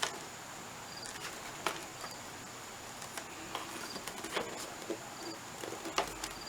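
Faint taps and light knocks of covered cardboard box pieces being handled and set down, with a faint short high chirp recurring about every second and a half.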